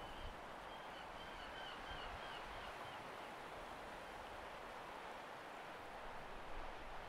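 Steady rushing ambience of surf and wind, with a faint run of short, high chirping notes during the first three seconds.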